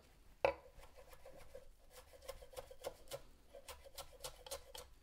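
Chef's knife chopping fresh parsley on a wooden cutting board: a run of light, quick taps, about four a second, with one louder knock about half a second in.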